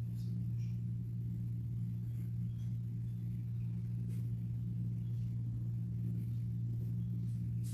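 Steady low hum with no change throughout, with a few faint light clicks over it.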